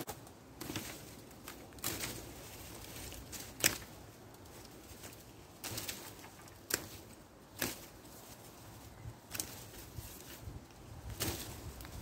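Knife blade cutting and shaving along a green hazel shoot, trimming it for an arrow shaft: about eight short, sharp scraping strokes at irregular intervals, the loudest a little under four seconds in.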